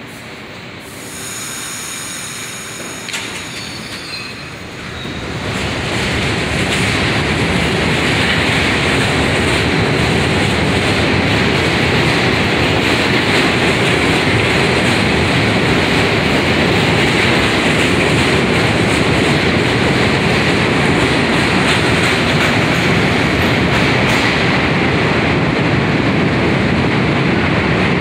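New York City subway train moving through the station: quieter at first with a few faint rising whines, then from about five seconds in a loud, steady noise of steel wheels on the rails with a squealing edge.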